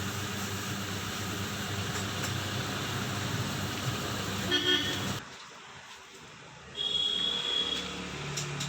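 Road traffic with vehicle engines running and a vehicle horn tooting briefly about four and a half seconds in. The sound cuts off abruptly after about five seconds to a much quieter stretch.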